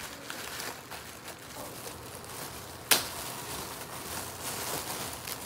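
Plastic wrapping crinkling and rustling as hands pull at a wrapped pack of garbage bags, with one sharp click about three seconds in.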